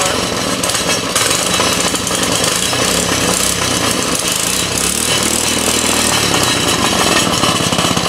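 Small 97cc single-cylinder flathead four-stroke engine running with its head bolts in place, a fast steady beat that changes around two-thirds of the way through and settles into slower, distinct firing pulses near the end.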